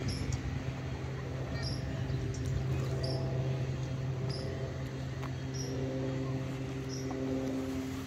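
Steady low engine hum, with a short high chirp repeating about once a second.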